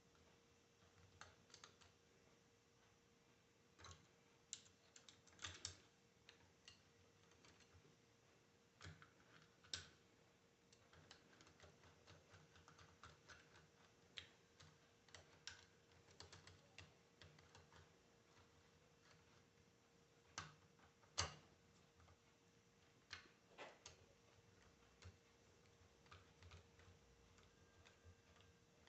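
Faint, irregular clicks and light taps of small parts and tools being handled during alternator reassembly, with one sharper knock about two-thirds through, over a faint steady hum.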